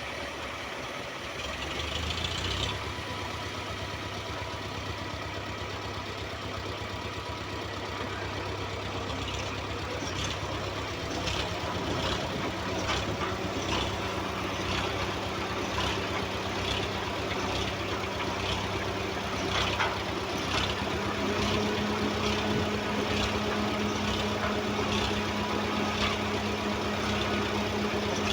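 Heavy construction machine's engine running steadily, its pitch slowly rising, with sharp knocks or clanks repeating about once a second from roughly a third of the way in.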